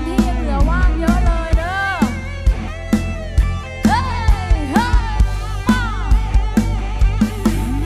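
Live band music: a woman singing lead into a microphone over a drum kit beat and bass, her voice sliding up and down through long held notes.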